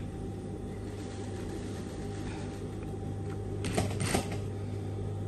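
Industrial sewing machine's motor humming steadily while idling, with two short clacks a little under half a second apart about four seconds in.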